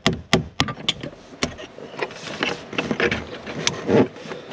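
Hand work with a tool at an open fuel pump/sender opening in a car's tank: a quick run of sharp taps or clicks, about four a second, stops about half a second in. Scattered lighter clicks and rattles follow, with one louder knock near the end.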